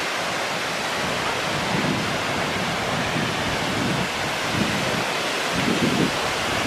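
Steady rushing roar of a broad waterfall pouring over rock ledges into a pool.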